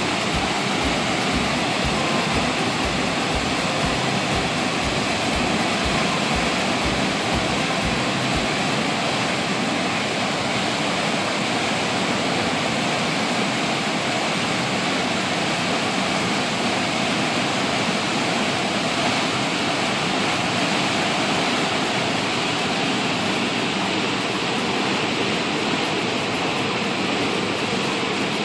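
Turbulent floodwater rushing and churning in white-water rapids, a steady, loud rush of water. It is water let out of a brim-full lake to keep it from overflowing.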